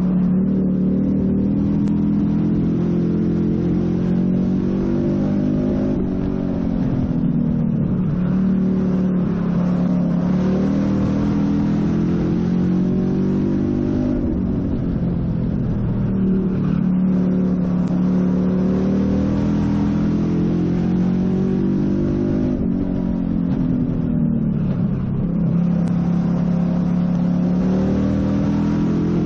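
Race car engine heard from inside its stripped cockpit, pulling hard with its pitch climbing for several seconds, then dropping sharply as the driver lifts for a turn. This happens three times, about every eight seconds, as the car laps the oval.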